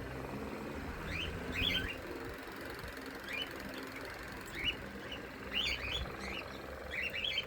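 Pet lorikeet chirping: short rising chirps, often two or three together, repeating every second or so.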